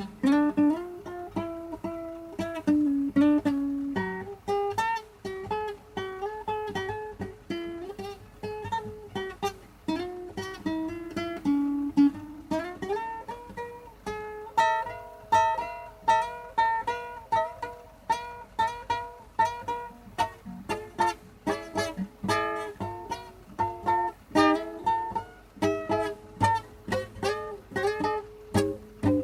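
Solo plucked-string instrument improvising in a blues vein, a dense stream of quickly picked notes and chords.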